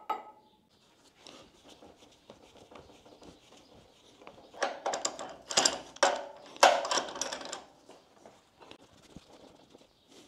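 Workshop handling noise as a test rig of steel tube and drill is put together: quiet scattered knocks, then three short, louder rasping, scraping bursts about halfway through.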